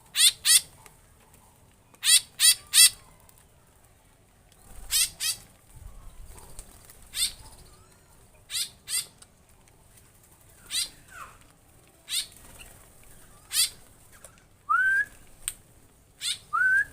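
Aviary birds calling: short harsh squawks, often in pairs, repeated every second or two, with two short rising whistles near the end.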